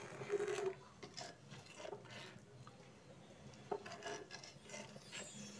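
A spoon scraping the bottom and sides of a pan as it stirs thick, simmering milk-and-rice pudding, in irregular short strokes. The loudest scrapes come in the first second.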